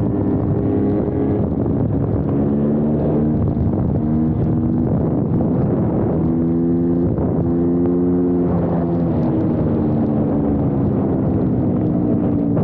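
Dirt bike engine running as it is ridden, its pitch rising and dropping in steps with the throttle.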